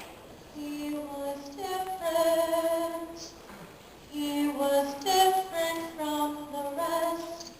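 A female voice singing a slow melody in two phrases, holding long sustained notes.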